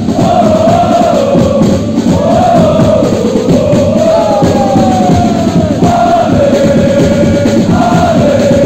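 A crowd of supporters singing a chant in unison, loud and continuous, with the massed voices carrying a wavering tune and echoing in the large hall.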